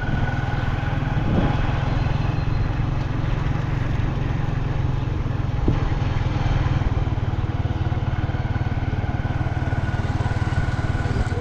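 A vehicle's engine running steadily with an even, fast low pulse, travelling at a constant pace.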